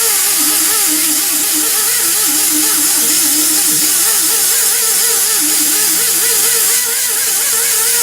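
Music with a wavering, vibrato-laden melody over steady held tones, with a loud, steady hiss under it.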